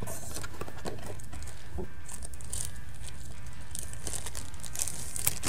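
Paper and cardboard packaging rustling and crinkling as items are taken out of a small box, with scattered light taps and clicks over a steady low hum.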